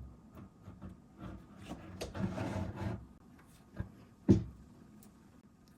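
A cabinet unit being handled in its opening: a knock, then a stretch of rubbing and scraping about two seconds in, and a second sharp knock about four seconds in.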